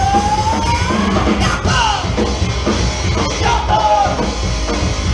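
Live rock band playing loud, with a drum kit driving the beat and a held note sliding upward in the first second.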